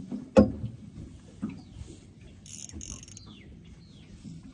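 A sharp knock about half a second in, then the faint mechanical clicking and short buzzes of a fishing reel being wound against a hooked fish.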